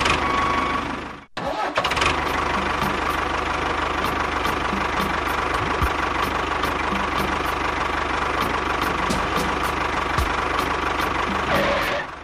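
Tractor engine running steadily at idle with a faint regular knock. It cuts out briefly about a second in, then starts again and keeps running.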